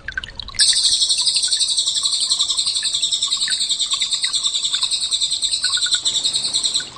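Cililin song: one long, loud, rapid high-pitched trill that starts about half a second in and stops abruptly just before the end.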